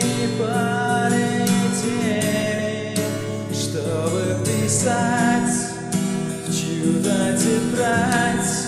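A man singing to his own strummed classical acoustic guitar, chords strummed steadily under a sustained sung melody.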